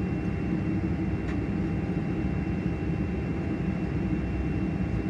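Steady cabin noise inside a Boeing 747 taxiing: a low rumble from its four jet engines at taxi power and the rolling airframe, with a thin, steady high tone running through it.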